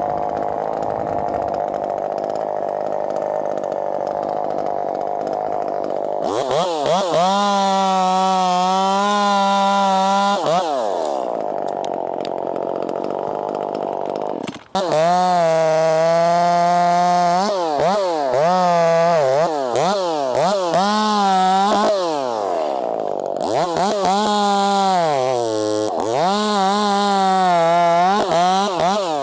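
Two-stroke chainsaw running at full throttle in a cut, its pitch dipping and recovering again and again as it loads in the wood. It runs lower for the first few seconds and eases off for a few seconds in the middle before cutting again.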